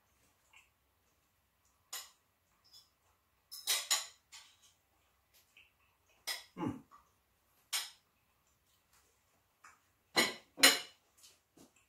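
Spoon and fork clinking and scraping on a plate while eating, a few scattered short clinks, with two louder knocks close together near the end.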